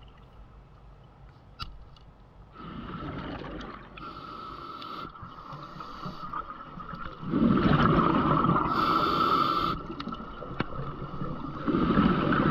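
Scuba regulator breathing underwater, heard through the camera housing: hissing inhalations and bubbling exhalations, the loudest bubbling burst about seven seconds in and another starting near the end. A short sharp click about ten seconds in is the speargun shot.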